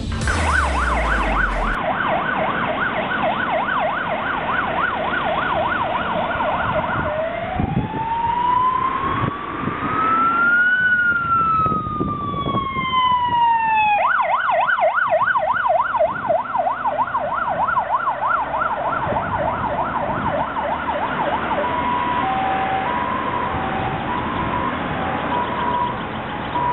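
Electronic siren of an Iveco heavy rescue fire truck on an emergency run: a fast yelp, then a slow wail that rises and falls over several seconds about a third of the way in, then the fast yelp again. Near the end it changes to a two-tone high-low pattern, with vehicle and road noise underneath.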